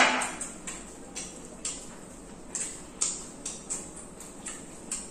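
A drinking glass set down on a table with a sharp knock that rings briefly, then scattered small crinkles and clicks of people eating: paper wrappers on egg rolls rustling and mouth sounds of chewing.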